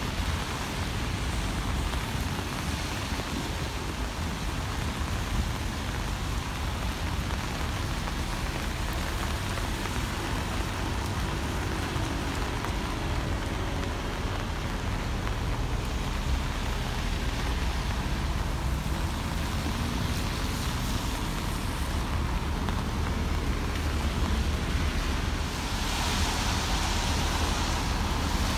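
Heavy rain falling in a steady, dense hiss, with a low rumble underneath. Near the end the hiss swells louder.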